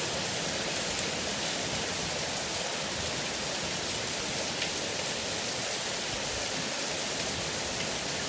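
Heavy rain pouring down in a steady hiss, with a few faint ticks.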